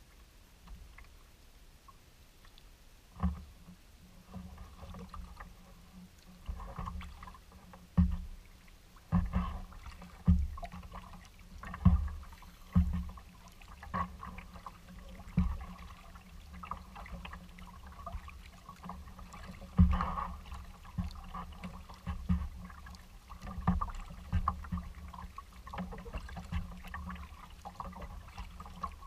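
Kayak paddle strokes on calm water: a double-bladed paddle dipping and pulling, giving short splashes and low thumps about once a second. The strokes start about three seconds in.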